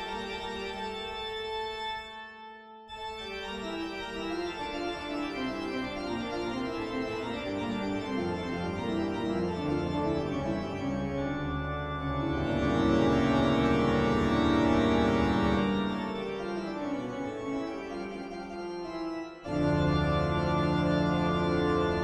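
Background organ music with sustained chords, dipping briefly about two seconds in and swelling louder near the middle and again near the end.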